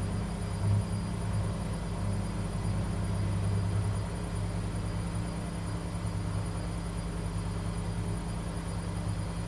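Washing machine running with a steady low hum and drone from its motor and drum, with a brief louder bump under a second in.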